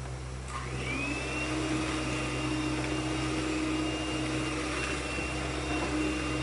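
Electric hand mixer switched on about half a second in: its motor whine rises, then runs steadily as the beaters work the cookie mixture in the bowl.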